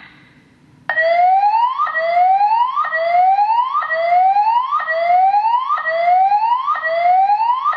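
Building fire alarm's voice-evacuation system sounding its whoop tone: a loud, repeating rising sweep, a little under one a second, starting about a second in after a short click.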